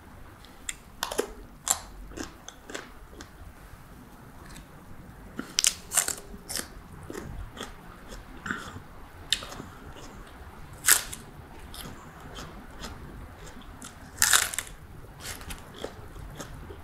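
Close-up biting and chewing of crisp food, crispy-skinned tandoor-roasted chicken and fresh romaine lettuce, with scattered sharp crunches, the loudest about eleven seconds in and again about three seconds later.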